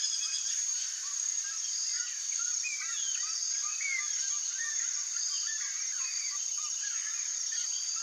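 Wildlife chorus: a steady high-pitched insect drone, with many short, overlapping chirps from small animals throughout.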